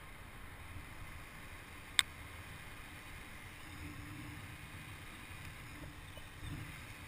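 Mountain bike tyres rolling on wet tarmac with wind on a helmet-mounted camera's microphone, a low steady noise. One sharp click about two seconds in.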